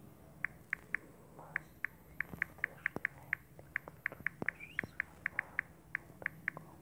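Smartphone on-screen keyboard key-press sounds: about two dozen short, high-pitched ticks at an uneven typing pace, one for each letter typed.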